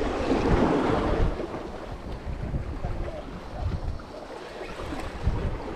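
Wind buffeting the microphone aboard a fishing boat at sea, with the wash of sea water, loudest in the first second or so.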